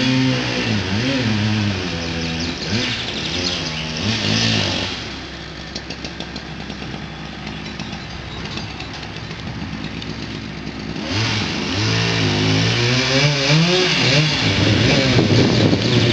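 An engine revving up and down, then easing off for several seconds. About eleven seconds in, a chainsaw revs up and holds a steady high throttle as it cuts at the base of a linden trunk.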